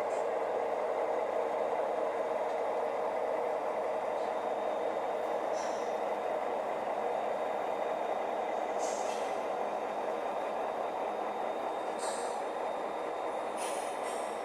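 Sound decoders in several HO scale model diesel locomotives playing a steady idling diesel engine sound through their small speakers, with a short hiss every few seconds.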